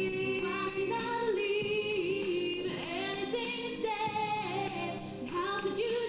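A woman singing a show tune over instrumental backing with a steady beat, from a live stage musical.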